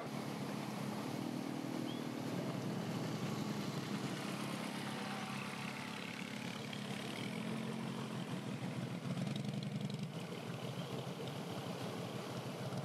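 A vehicle engine running at low revs: a steady low hum that shifts slightly in pitch, over a constant background hiss.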